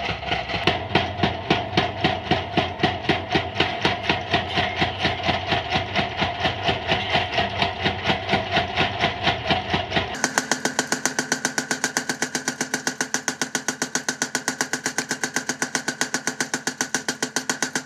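Power hammer pounding a red-hot steel bar on its anvil die in a rapid, steady rhythm of blows, drawing out the steel for a katana blade. About ten seconds in the sound changes abruptly: the low rumble drops away and the blows sound sharper and closer together.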